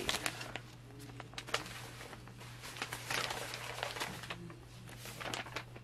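Printed paper sewing-pattern pieces rustling and crinkling as they are handled, with scattered small clicks and a louder rustle about three seconds in.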